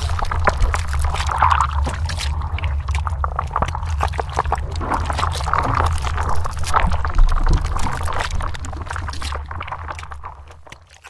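Liquid splashing and gurgling, with many small crackling splats over a deep steady rumble, fading out near the end.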